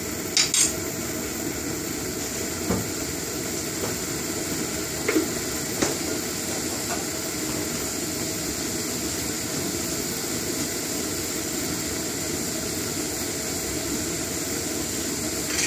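A pan of turmeric-and-salt water with cauliflower florets heating on a gas burner, with a steady hiss as it comes to a simmer. A few light clicks sound in the first few seconds.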